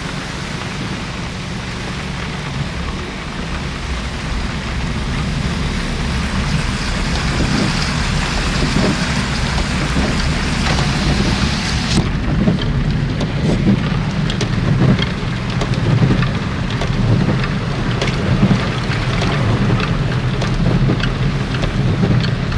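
Rain and a car driving through floodwater, heard from inside the cabin: a steady low rumble under the hiss of rain and water. About halfway through the sound changes abruptly, the hiss dropping away and sharp ticks coming over a heavier rumble.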